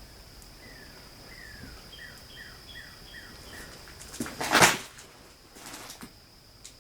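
A bird calls a quick series of about eight short notes, each sliding down in pitch. Then comes a loud crash or thud, followed by a softer scraping rustle and a small click, all over a steady high insect whine.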